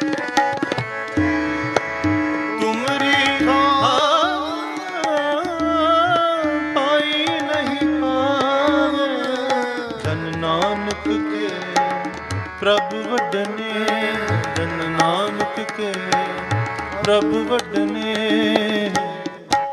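Sikh kirtan music: tabla playing a steady rhythm under harmonium, with a singer's voice holding and bending long, drawn-out notes without clear words.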